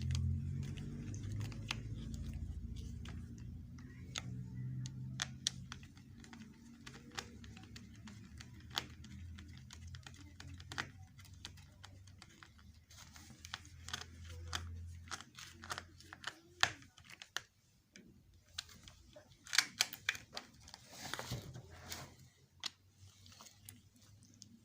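Scattered small clicks and taps of hand work at a workbench, over a low hum that fades out about two-thirds of the way through.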